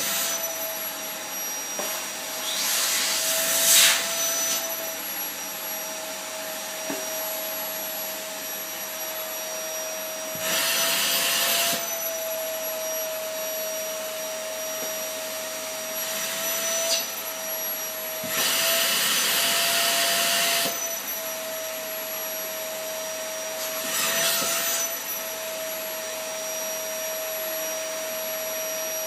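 Vacuum cleaner running with a steady motor whine. Four times it swells into a louder rush of air lasting a second or two, as the nozzle is worked over the floor, and the whine dips slightly in pitch each time.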